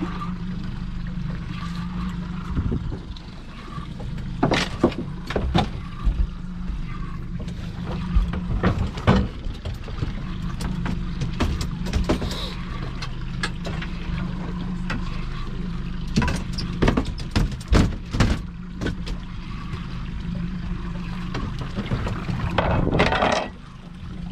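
Boat motor running steadily at low speed, with scattered sharp knocks and water noise over it.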